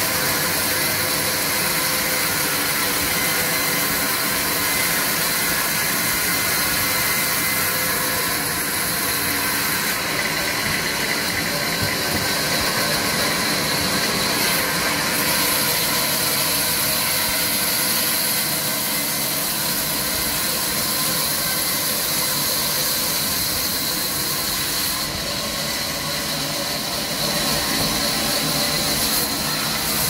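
Sawmill band saw running and ripping a log into planks: a steady machine drone with a high hiss of the blade cutting through the wood, the hiss getting brighter for stretches about ten seconds in and again near the end.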